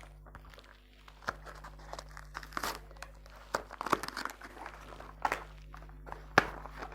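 A small box and its packaging being opened by hand: crinkling and tearing with irregular clicks and taps, the sharpest tap near the end.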